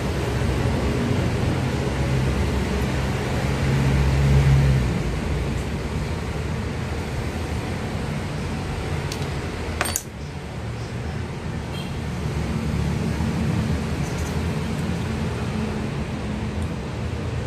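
A steady low background rumble, with small clicks and taps from motor parts being handled and fitted, and one sharp click about ten seconds in.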